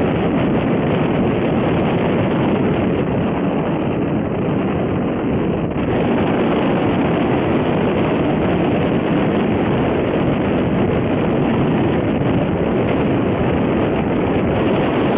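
Loud, steady wind noise buffeting the microphone, easing slightly for a moment about six seconds in.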